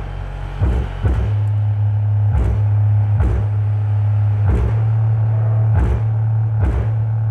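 Bare subwoofer cone driven by the SOCL 504 power amplifier with a low steady test tone, which steps up and steadies about a second in. Small loose bits lying on the cone bounce and rattle in short irregular bursts, about one every second or so.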